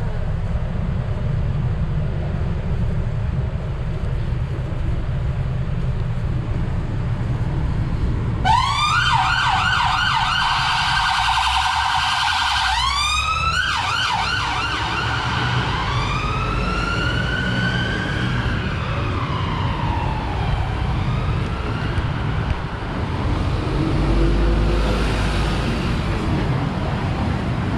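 Emergency vehicle siren going by in city traffic. It starts about a third of the way in as a fast yelp, then changes to a slow rising-and-falling wail that fades away, over a steady rumble of traffic.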